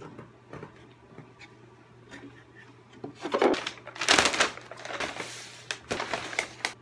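A brown paper bag rustling and crinkling in loud bursts as it is opened and rummaged through, starting about three seconds in, after a few faint knocks.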